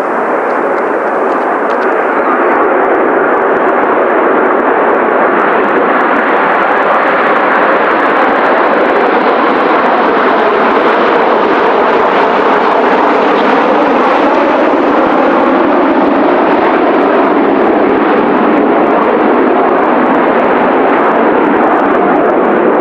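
Kawasaki T-4 jet trainers of the Blue Impulse team flying past in formation, their turbofan engines a loud, steady jet roar. It swells slightly at first, holds, and drops away abruptly at the very end.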